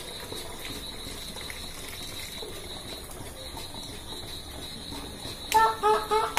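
Water-jar pump running water into a plastic bottle: a faint steady flow with a thin high whine throughout. About five and a half seconds in, a louder run of quick pitched pulses starts, about five a second.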